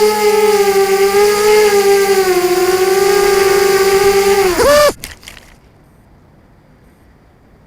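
FPV racing drone's brushless motors whining loudly, the pitch wavering up and down with the throttle. About five seconds in the whine dips, jumps briefly and cuts off abruptly as the motors stop, leaving only a faint hiss.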